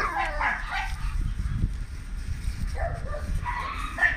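A litter of American Bully puppies whining and yipping: a cluster of short high calls at the start, a lull, then more in the last second and a half.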